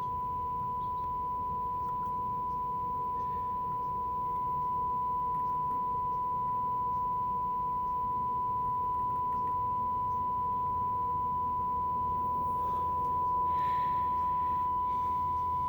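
A steady, unbroken single test tone from a Nordmende Caruso tube radio's speaker: the modulation of the FM test signal fed in from a signal generator during alignment. Faint hiss and low hum sit beneath it.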